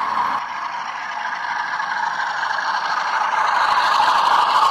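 A model diesel locomotive running past on the track: a steady whir with the scrape and clatter of its wheels on the rails, growing louder over the last few seconds as it draws close.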